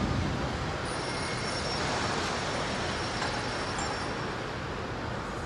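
Show music fading out at the start, leaving a steady background rumble and hiss of outdoor ambient noise, like distant traffic.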